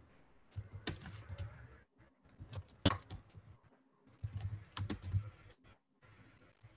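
Computer keyboard typing: three short, irregular clusters of keystrokes with brief pauses between them, one keystroke about three seconds in louder than the rest.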